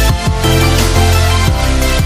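Loud electronic background music with heavy bass and a steady beat.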